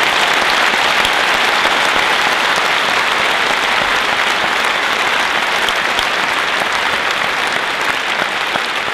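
Large audience applauding steadily, with dense clapping that eases slightly near the end.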